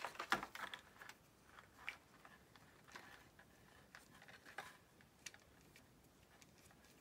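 Faint clicks, taps and light knocks of small plastic and metal parts being handled, as an RC crawler's brushless motor is offered up against its plastic transmission case. A cluster of louder clicks in the first second, then scattered single taps.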